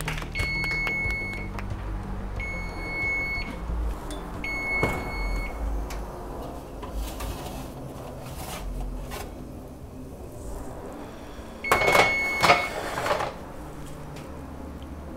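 Oven timer beeping three times, each a steady high tone about a second long, signalling that the baking is done. Near the end comes a louder burst of noise, the loudest moment, with one more beep in it.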